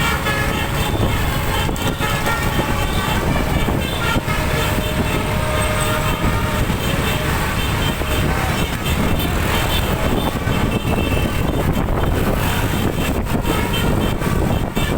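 Bus's twelve-trumpet telolet air horn sounding held tones over the steady low rumble of road and engine noise.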